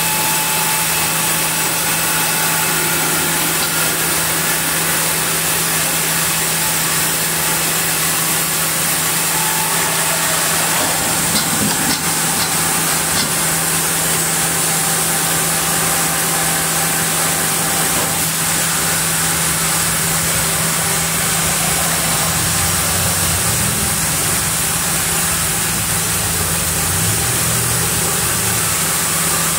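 Large log band saw running steadily while sawing a camphor log, a constant machine hum with a high hiss over it. A few faint knocks come about eleven to thirteen seconds in, and a lower hum joins in the last several seconds.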